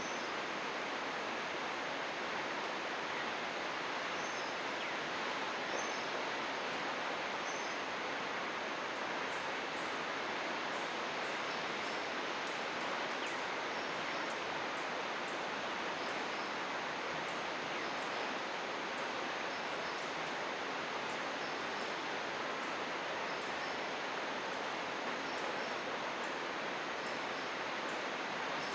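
Steady rush of flowing river water, with faint short high bird chirps repeating now and then.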